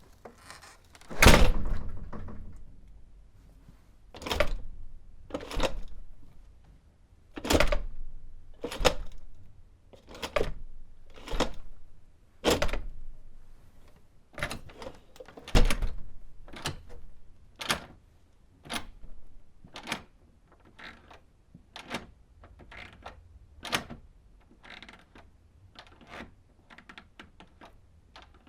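A classroom door being handled over and over: a run of sharp knocks and thuds from the door and its latch, with short room echo. The heaviest thuds come in the first half, and lighter, quicker clicks follow later.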